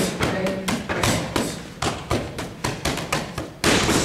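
Punches landing on a trainer's focus mitts during boxing pad work: a quick, uneven run of smacks, several a second, in combinations.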